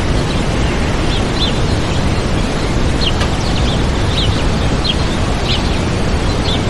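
Waterfall rushing steadily, with small birds chirping over it in short, high notes, loosely spaced, roughly every half second.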